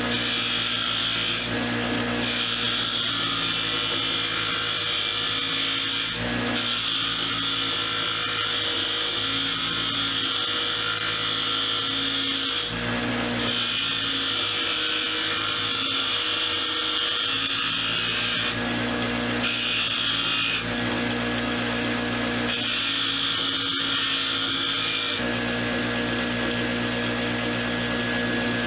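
Motor-driven wire wheel running steadily, with a rough scratching hiss that comes and goes every few seconds as the rusty steel shaft of a screwdriver is pressed against the wire brush to strip off the rust.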